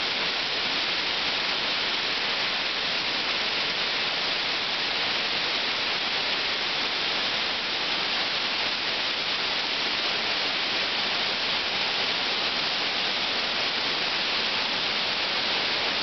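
A waterfall cascading in several streams down a steep rock face: a steady, even rush of falling water.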